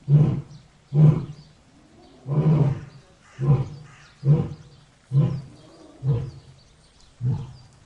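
Lion roaring in a series of about eight short, deep grunts, roughly one a second, each fading off and the series generally weakening toward the end: the closing grunts of a roaring bout.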